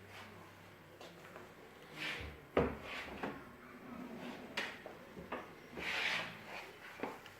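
Kitchen cabinet drawers and doors being opened and shut: several short wooden knocks, the loudest about two and a half seconds in, with sliding and rubbing noises between them.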